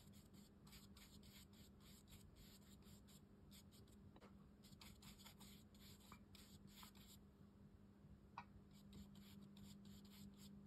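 Faint, quick scratchy strokes of a watercolour brush working paint into rough cotton rag paper, thinning out about two-thirds of the way through, over a steady low hum.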